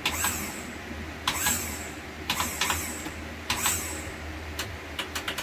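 MerCruiser power trim pump being switched through its solenoids off a jumped battery: four short bursts about a second apart, then a quick run of clicks near the end. The solenoids are faulty: down does not work and up sticks.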